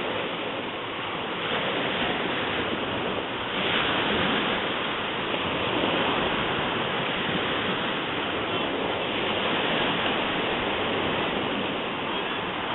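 Sea waves washing onto the shore as the tide comes in: a steady rushing wash that swells and eases.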